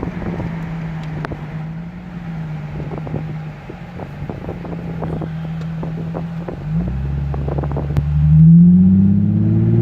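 Nissan 350Z's 3.5-litre V6 idling steadily, with scattered clicks and wind on the microphone. A deeper note comes in about two-thirds of the way through. Near the end the engine note rises and falls back in one rev, the loudest part.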